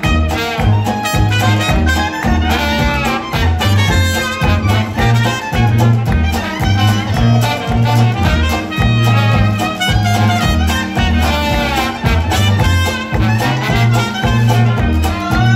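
A traditional New Orleans jazz band playing live: trumpet, clarinet and trombone weave melody lines over a tuba's steady bass line, with washboard, banjo and guitar keeping the rhythm.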